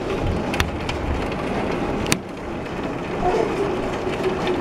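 Heavy rain pouring in a thunderstorm: a steady rushing noise with a low rumble underneath, and a sharp click about two seconds in.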